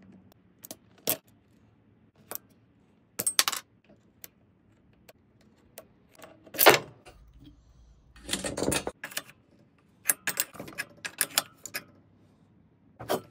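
Pliers clicking and scraping on a #40 steel roller chain as its master link clip is pried off, with metal links clinking. Scattered sharp clicks, and a longer rattle a little past the middle.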